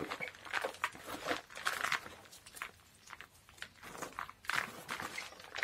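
Hands stirring and turning a bark-chip orchid potting mix in a plastic basin: irregular crunching and rustling as the bark pieces scrape together.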